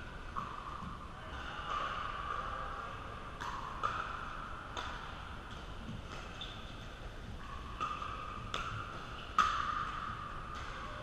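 Pickleball paddles hitting a hard plastic ball back and forth in a doubles rally: about six sharp pops at uneven intervals from a few seconds in, the loudest near the end, over a steady background din.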